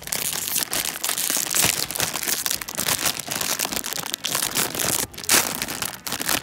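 Plastic packet of Chicken Ramen instant noodles crinkling and rustling as it is handled, with a louder crackle about five seconds in.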